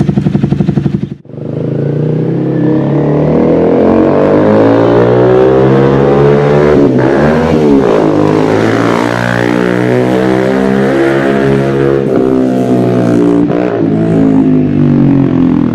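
Honda sport motorcycle engine running loud, breaking off briefly about a second in, then revving up and down with its pitch repeatedly rising and falling as the bike rides off.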